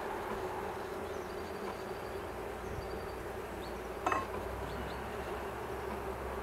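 Honeybee colony humming steadily in an opened hive, with a single sharp knock about four seconds in.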